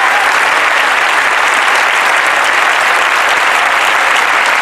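A large crowd applauding steadily.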